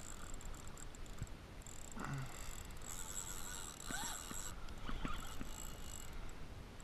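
Faint water lapping against a kayak hull, with a few soft ticks and a brief faint squeak.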